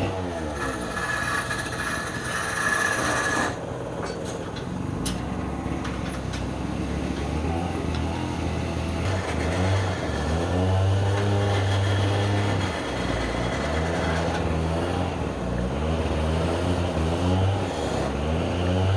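Wood lathe running with a steady low hum whose pitch slowly rises and falls, and a brighter cutting sound from the turning tool that stops abruptly about three and a half seconds in.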